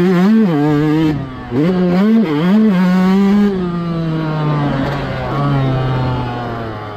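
Yamaha YZ125 single-cylinder two-stroke motocross engine, heard on board, revving hard with quick rises and drops in pitch and a brief dip in level just past a second in. After about three and a half seconds the throttle rolls off and the engine note slowly falls and grows quieter as the bike slows.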